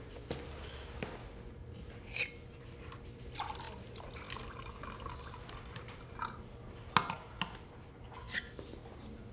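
Water poured from a glass jug into a drinking glass on a wooden table, with several sharp clinks of glass, the loudest about seven seconds in.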